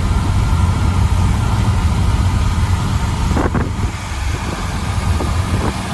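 Ford 351 V8 idling steadily with a bit of a misfire, which the owner puts down to spark plugs that need replacing.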